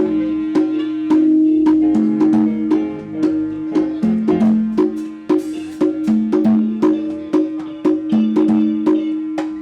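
Live band playing an instrumental passage during a sound check: a steady beat of sharp plucked and struck notes over sustained low notes that swing back and forth between two pitches.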